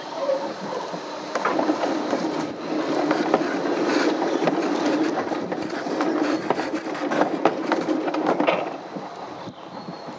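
Summer toboggan sled running along a stainless-steel trough: a steady rolling rumble with frequent clacks and knocks, easing off about nine seconds in.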